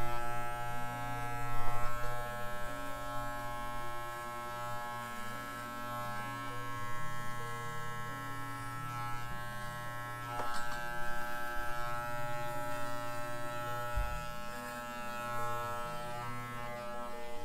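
Corded electric hair clippers buzzing steadily as they shear a miniature schnauzer's coat, the buzz swelling slightly at times as the blade works through the fur.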